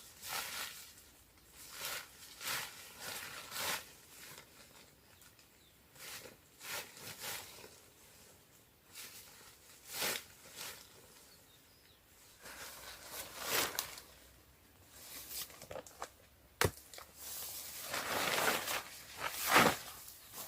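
Irregular rustling and crunching of dry leaves and sticks being handled and moved through, with a single sharp knock about 17 seconds in and a denser spell of rustling near the end.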